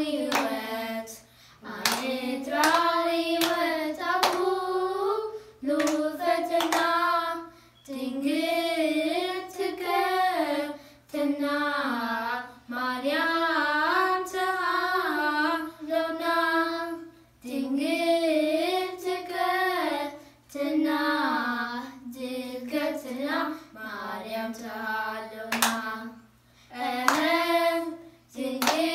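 Children singing a Tigrinya Orthodox Tewahido mezmur together in one melodic line, in repeated phrases with short breaks between them, with hand claps on the beat.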